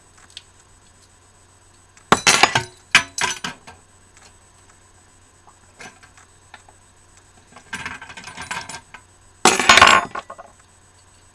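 Kitchen clatter from a sauce bottle and a metal measuring spoon being handled and set down on the counter beside a mixing bowl. Sharp clinks and rattles come in short bursts about two and three seconds in, a weaker one about eight seconds in, and the loudest near the end.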